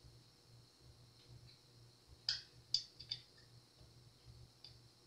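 A few faint clicks from a small tool working at the bridge of a Fender Precision Bass while a string saddle is adjusted. The clicks fall mostly a little past the middle, the loudest about two seconds in.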